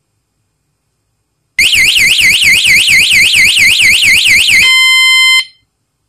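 Cicada A6 bicycle anti-theft alarm tail light sounding its siren: starting about a second and a half in, a loud electronic wail sweeping up and down about four times a second, then switching to a steady high tone for under a second before cutting off suddenly.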